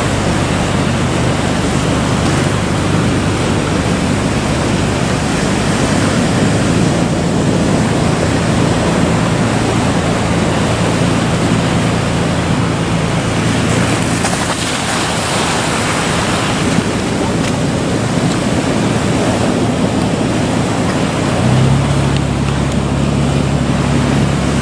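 Waves breaking and surging, with wind on the microphone, over the low steady hum of a fishing boat's engine. The low engine note shifts and grows stronger near the end.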